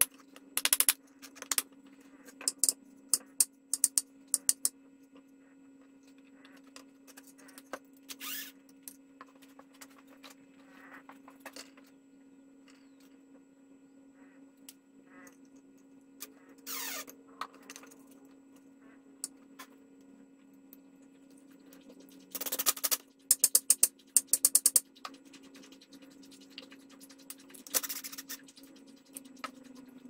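Cordless drill running briefly, for about a second, as it bores a small hole in a walnut piece, amid scattered clicks and knocks of small tools handled on a workbench, over a steady low hum.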